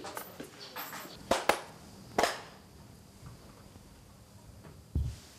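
Hand claps of Shinto shrine worship: three sharp claps between one and two and a half seconds in, the last ringing briefly. A dull low thump near the end.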